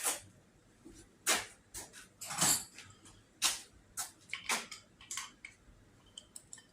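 Scattered light clicks, knocks and metallic clinks, roughly ten separate short sounds, as a string-trimmer spool is taken off the bolt and nut it was wound on.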